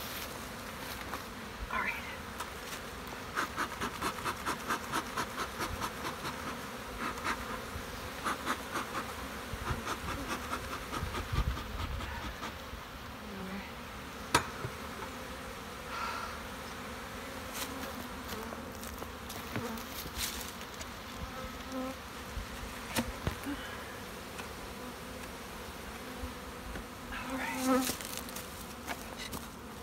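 Honeybees freshly released from a package buzzing in a steady hum around an open hive, with scattered knocks and clunks from the wooden package box and tin feeder cans being handled.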